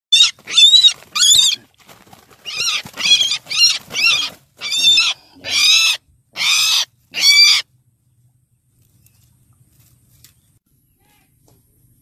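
Barred rail (tikling) giving a series of about ten loud, harsh, wavering calls, each under half a second long, that stop a little past halfway through.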